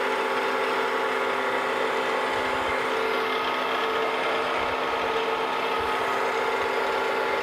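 Wells-Index vertical milling machine running with its 1-inch end mill spinning free, not yet cutting: a steady mechanical whir with several held tones.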